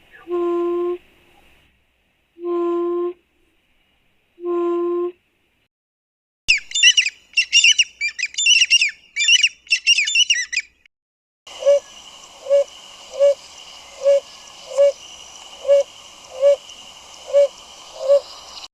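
Three bird calls played in turn. First comes a common buttonquail's low hooting, four long hoots about two seconds apart. About six seconds in, a Shelley's francolin gives a fast, high, rhythmic chattering phrase. From about eleven seconds on, a Narina trogon calls a steady run of short low hoots, a little under a second apart, over a faint steady insect buzz.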